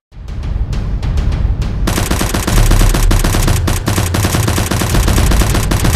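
Rapid automatic gunfire, sparse shots at first, then a dense, continuous volley from about two seconds in, with a deep rumble beneath it.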